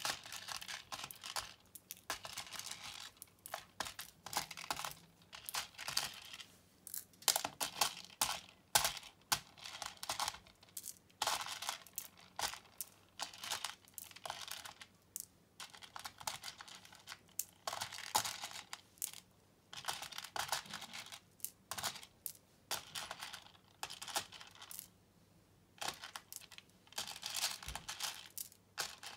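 Plastic pony beads clicking and rattling against each other and a clear plastic organizer as a hand sifts and scoops through a loose pile, in irregular spells of clatter with a short lull a few seconds before the end.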